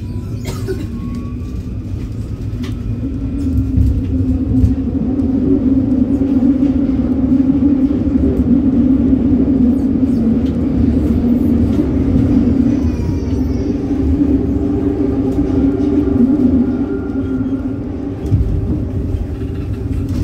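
Paris Métro line 9 steel-wheeled train running, heard from inside the carriage: a steady rumble with a strong hum. It grows louder over the first few seconds and eases briefly near the end.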